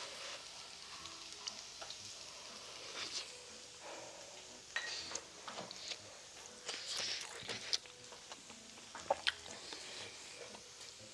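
Fried rice sizzling steadily on a hot grill plate, with chewing and a few sharp clicks of spoon and chopsticks.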